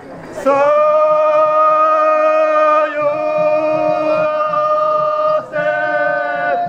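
Drawn-out chanted call of a daimyō-gyōretsu (feudal-lord procession) troupe, sung on long held notes in three phrases with short breaks between them.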